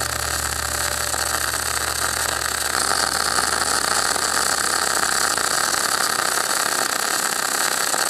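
Electric arc welding on a bumper: the arc gives a steady crackling hiss, with a low hum underneath that stops about two and a half seconds in.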